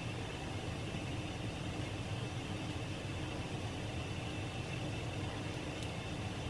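Steady low hum and hiss of a ceiling fan running.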